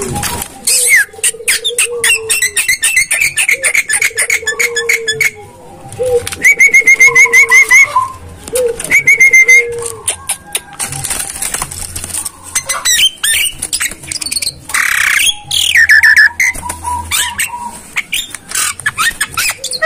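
Javan myna calling: harsh clicks and rattles, low whistled glides, and two fast runs of repeated high notes a little before halfway. This is the excited calling of a myna in breeding mood.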